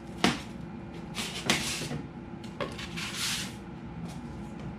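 Parts being handled in a styrofoam packing box: a sharp click, then several scraping, rustling sounds of foam and packaging.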